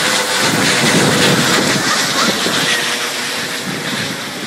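Airbus EC135 trauma helicopter's rotor and turbine noise passing overhead, a loud rushing beat with a faint steady whine, fading as it flies away.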